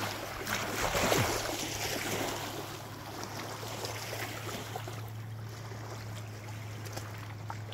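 Rushing, splashing water over a steady low hum, loudest about a second in.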